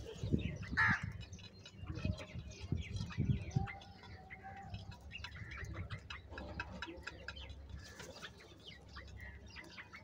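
A flock of house crows feeding from clay bowls of grain: many small pecking clicks, with short bird calls and chirps, and one louder call about a second in.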